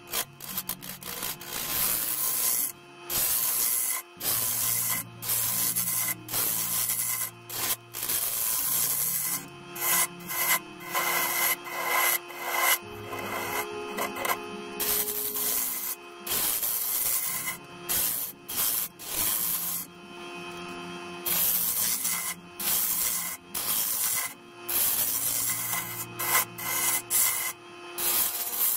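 Gouge cutting the inside of a sapele bowl spinning on a wood lathe: a harsh scraping hiss of the tool on the wood, broken off and restarted many times as the cut is taken in short passes.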